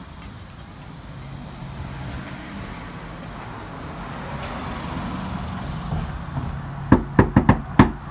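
Steady hum of outdoor traffic. About seven seconds in, five quick, sharp knocks on a front door come in an uneven rhythm.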